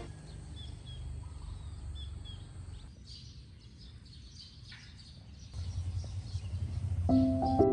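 Outdoor ambience: small birds chirping in short high notes over a steady low rumble, which swells about two-thirds of the way through. Soft piano music comes in near the end.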